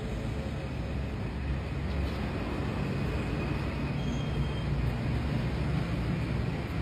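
Steady low rumble of road traffic, engine and road noise with no horn sounding.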